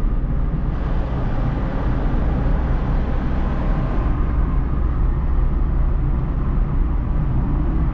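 Car driving, heard from inside the cabin: a steady low rumble of engine and road noise. From about a second in, a brighter hiss joins for about three seconds, then fades.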